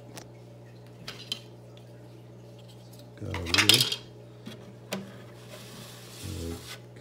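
Hard plastic parts clinking and knocking against the glass of a small aquarium tank as they are handled and lifted out, with a louder clatter about three seconds in and some rustling of packaging near the end.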